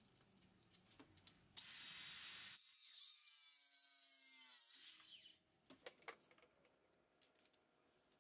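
Cordless circular saw cutting briefly through a pine 2x rafter tail, a short burst of cutting noise about one and a half seconds in, followed by the saw's motor whine dying away; faint clicks and knocks of handling the saw before and after.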